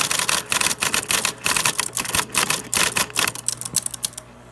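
Electric typewriter typing fast, its type striking the front glass of an iPhone 4S set in the machine: a quick run of sharp clacks that thins out after about three seconds and stops near the end, over a steady low hum.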